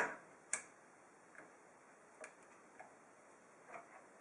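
Intel stock CPU cooler push pins clicking as they are pressed into the motherboard holes, each click the sign of a pin locking into position. A sharp click at the start and another about half a second later, then a few fainter clicks.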